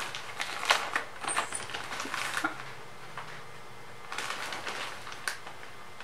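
Clear plastic zip-top packaging bag crinkling as it is handled. The crinkling comes in clusters through the first two and a half seconds and again around four to five seconds in.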